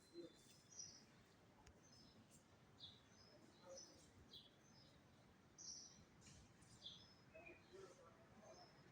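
Faint, scattered short high chirps, about a dozen of them, like small birds calling, over a low hiss.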